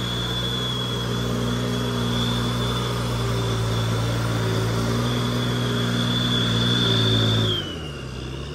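Truck engine pulling under load with a steady high whine alongside it, building a little in loudness; about seven and a half seconds in the revs and the whine drop together as it eases off.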